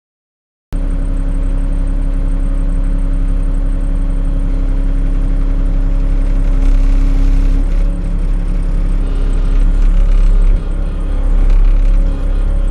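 Diesel engine of a tracked earthmoving machine running steadily under load with a deep rumble, cutting in abruptly about a second in.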